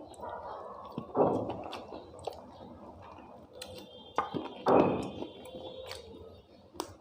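A person eating chicken leg curry and khichuri: chewing and mouth sounds with scattered sharp clicks, and two louder noisy bursts, about a second in and near five seconds in.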